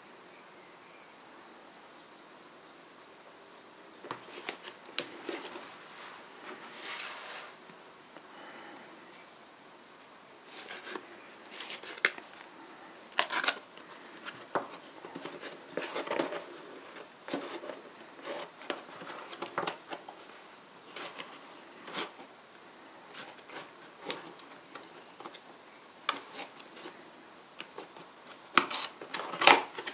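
Cardboard brake-pad box being handled and opened by hand: irregular scraping, rustling and sharp clicks of the box and its flaps, starting about four seconds in and growing busier near the end.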